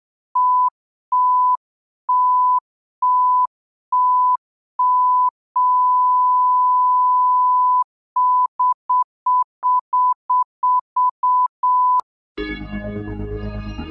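Electronic beep tone at one steady pitch, pulsing: six evenly spaced beeps, one long held tone, then a fast irregular run of short beeps. Music comes in near the end.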